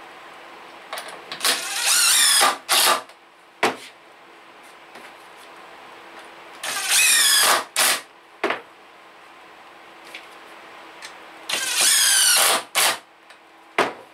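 DeWalt cordless impact driver sinking deck screws into pine seat slats: three screws driven, each a run of about a second followed by one or two short trigger taps.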